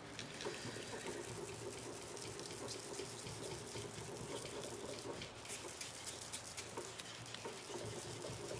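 Foam ink blending tool being swirled and dabbed over cardstock: a soft, continuous scratchy rubbing with many small ticks.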